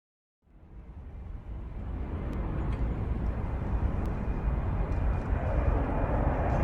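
Airplane coming in to land, its engine noise a low rumble and rush that fades in about half a second in and grows steadily louder as it draws near.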